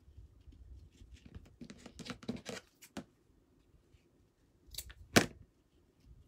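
Jute cord rustling and crackling as it is pressed and rubbed onto a hot-glued paper mache egg with silicone fingertip protectors. Then two sharp clicks come about five seconds in, the second the loudest.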